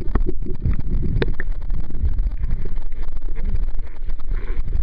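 Muffled, loud low rumbling and churning of seawater picked up by a waterproof camera's microphone while it is submerged, with a couple of sharp clicks in the first second and a half.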